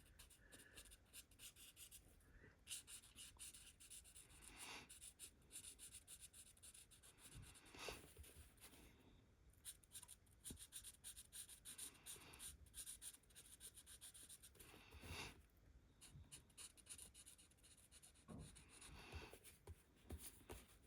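Faint scratching of a pen on paper: many short strokes in quick succession, with a few slightly louder ones along the way.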